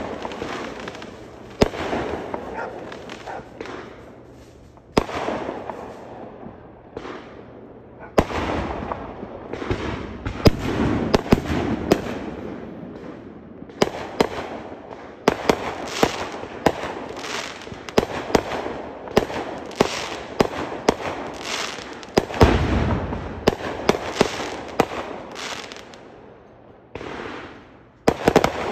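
Consumer aerial fireworks going off in quick succession: sharp bangs of shells bursting, many a second at the busiest moments, with crackling and echoing rumble between them.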